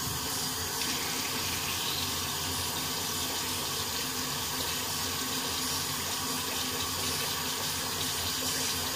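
Bathroom sink tap running in a steady stream into the basin.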